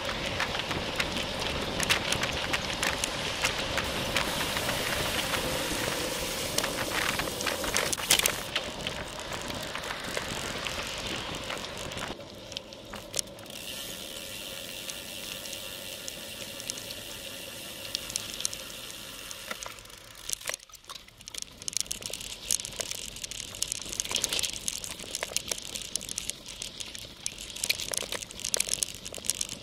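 Riding a Specialized Crux cyclocross bicycle, recorded by a bike-mounted camera: loud wind and road noise with a steady hum and traffic alongside for the first dozen seconds. It then turns to quieter, smoother tyre noise on pavement. In the last third comes a rattling, clicking sound of the tyres on a dirt trail.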